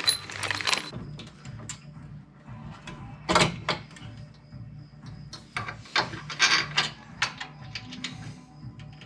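Irregular metal clinks and clunks from tools and masonry-saw parts being handled during assembly, with the loudest knocks about three seconds in and a cluster of them past the middle.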